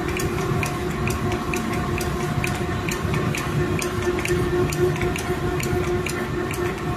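Six-colour central-impression flexographic printing press running steadily: a continuous mechanical hum with a steady tone, and a rapid, even ticking of about three to four ticks a second.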